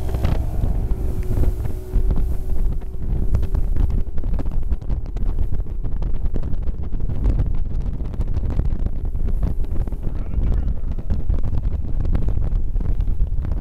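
Heavy wind buffeting the microphone aboard a fishing boat running at speed, over the low drone of its outboard motor. A steady hum is heard in the first few seconds and fades out.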